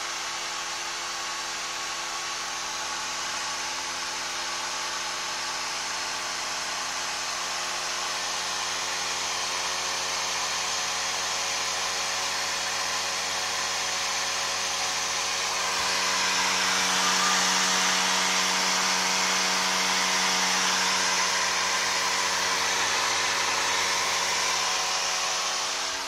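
AMD Radeon HD 6990 graphics card's blower fan running at high speed: a loud, steady whoosh with a whine of several steady tones underneath. About sixteen seconds in it gets louder and brighter.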